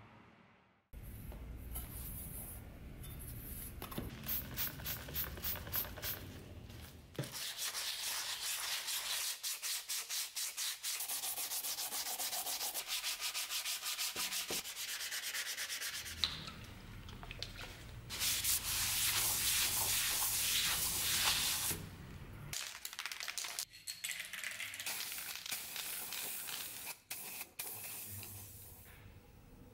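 Hand sanding of a metal rapier hilt part clamped in a vise, fast back-and-forth rubbing strokes repeated over several takes. Near the end comes the hiss of an aerosol primer can spraying in short bursts.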